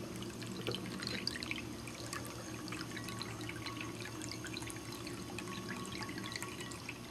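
Water trickling and dripping from the leaf-shaped spout of a ceramic cat fountain into its bowl of water, a steady stream of small splashes over a constant low hum.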